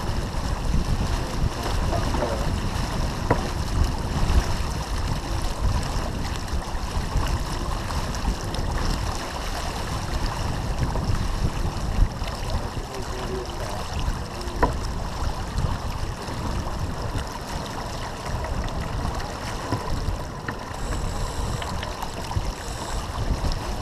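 Wind buffeting the microphone over the steady rush of water along the hull of a sailboat under way, with a few sharp clicks.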